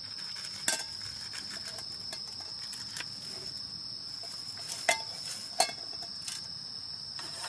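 Night insects singing, one steady high-pitched trill that never stops. Over it come a few sharp clicks, one about a second in and two close together around five seconds in.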